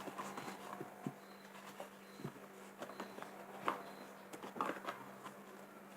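Faint handling noises on a tabletop: a few soft, scattered taps and clicks over a steady low hum.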